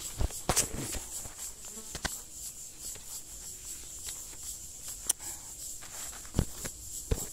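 A steady, high-pitched chorus of insects, finely pulsing. Several knocks and thumps cut across it, the loudest two near the end.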